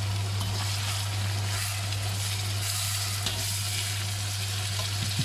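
Beef chunks and chopped onions sizzling in hot oil in a cast-iron wok, turned with a metal spatula. A steady low hum lies underneath.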